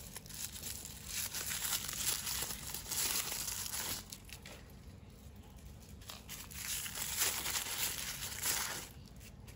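Plastic toy packaging crinkling and tearing as it is unwrapped by hand, in two busy spells with a quieter pause between.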